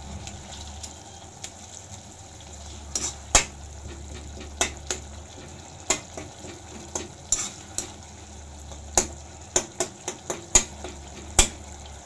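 Tomato and onion masala sizzling steadily in a wok while a metal slotted spoon mashes the softened tomatoes, knocking sharply against the pan about once or twice a second from about three seconds in.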